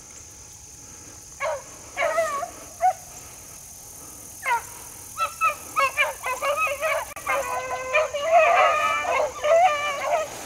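Pack of rabbit hounds baying as they trail a rabbit. A few single yelps come first, then about halfway in several dogs open up together into continuous overlapping bawling.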